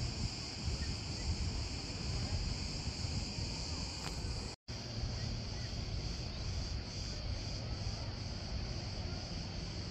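Steady high-pitched buzz of cicadas over a low rumble, with the sound cutting out for a split second a little before halfway.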